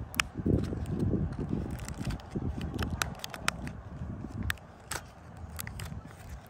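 Crinkling and crackling of a printed wrapper being peeled off a Toybox surprise egg by hand, with many sharp crackles scattered through it.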